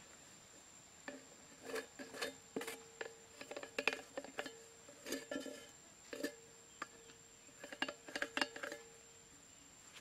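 An empty metal milk-powder tin being handled on sandy ground: a run of irregular metallic clinks and scrapes with a faint ring.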